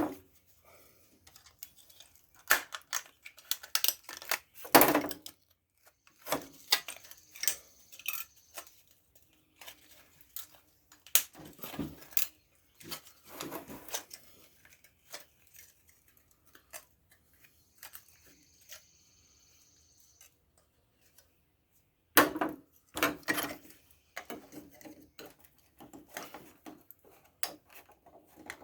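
Irregular clicks, knocks and clatter of hands and tools working at an old hair dryer's plastic housing to get the motor out, with a lull partway through and a cluster of sharper knocks near the end.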